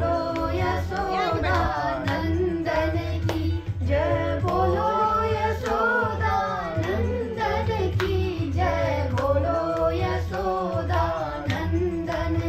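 A woman singing a Holi folk song of Uttarakhand, clapping her hands to keep time.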